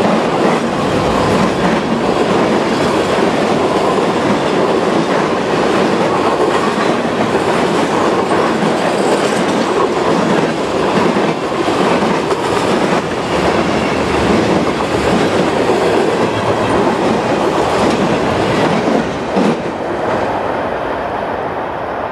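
Freight train cars passing at speed: steady wheel-on-rail rumble with clickety-clack over the rail joints. It eases a little near the end as the last cars go by.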